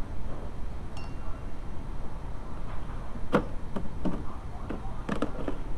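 Small metal parts clinking against a metal parts tray: a few light, briefly ringing clinks, most of them in the second half, over a steady low background rumble.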